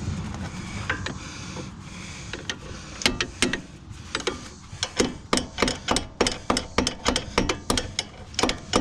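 Hand ratchet clicking in short, even strokes: a few clicks about three seconds in, then a steady run of about three clicks a second.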